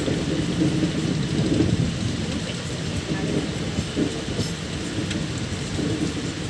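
Passenger train coach running along the track, heard from the open coach doorway: a steady low rumble of wheels on rails.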